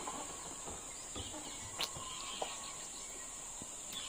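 Forest ambience: a steady high-pitched insect drone with faint bird chirps. There are two short sharp clicks near the middle, the first the loudest sound.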